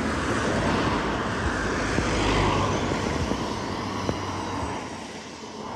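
Steady rushing noise of running water washing mud off a toy vehicle, easing off a little near the end.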